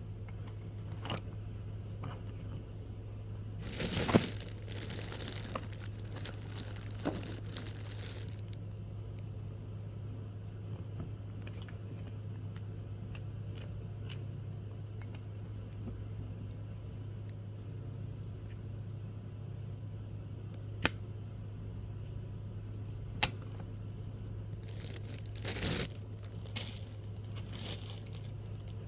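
Workbench handling noises: scattered sharp clicks and taps, as of small metal parts being set down, and two spells of crinkling, over a steady low hum.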